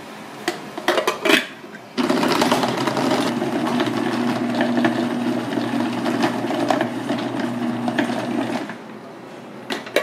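A few plastic clicks as the food processor's lid is fitted, then its electric motor starts suddenly about two seconds in and runs steadily for some seven seconds, the blade mincing chunks of raw cuttlefish, before it stops near the end.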